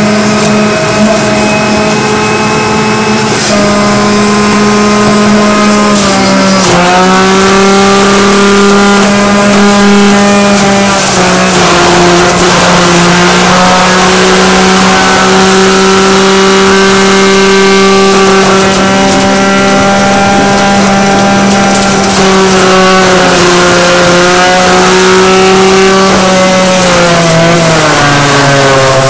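Electric juicer running with a loud, steady motor whine. The pitch sags and recovers about six seconds in and again near the end as produce is pushed down the feed chute onto the cutter, loading the motor.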